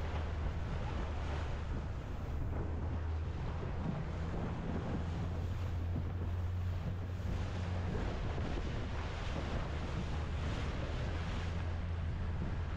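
Wind buffeting the microphone and water rushing past a boat moving through choppy sea, swelling every second or two, over a steady low hum.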